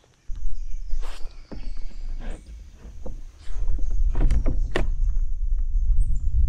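Irregular knocks and clicks of gear being handled in a kayak, over a steady low rumble on the microphone; the sharpest knock comes near the end.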